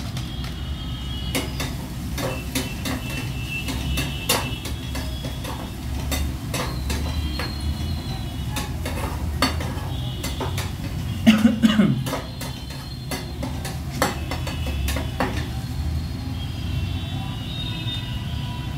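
Steel spatula stirring and scraping masala in a steel kadhai, many sharp metal-on-metal clicks and taps, with a louder clatter of knocks about eleven seconds in. A steady low rumble runs underneath.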